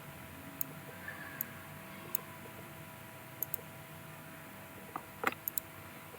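Computer mouse clicking: scattered, irregular sharp clicks with a louder cluster about five seconds in, over a faint steady electrical hum.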